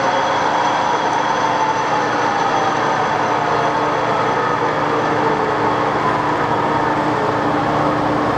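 Toolmex-Andrychow TUG-40 gap bed engine lathe running at high spindle speed: a steady geared-headstock whir with several faint, steady whining tones.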